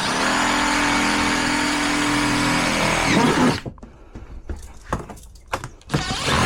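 A motor runs steadily for about three and a half seconds, starting and stopping abruptly, with a second shorter loud burst near the end.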